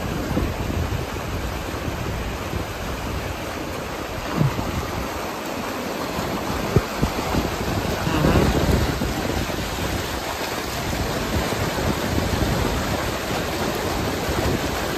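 Water rushing through a breach in a beaver dam: a steady, even rush of noise, with a few short knocks about four and a half and seven seconds in.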